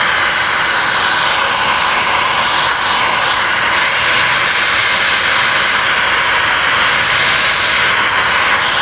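Handheld hot air gun running, a steady rushing blast of air with a faint high whine, as it is passed over a black plastic bumper step.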